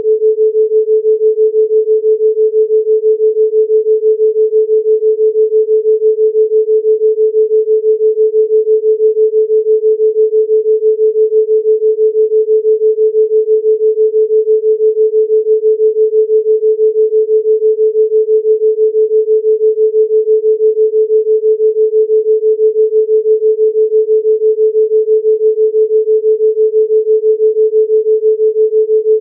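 A 432 Hz pure sine tone held steady, its loudness pulsing evenly and quickly: a theta binaural beat.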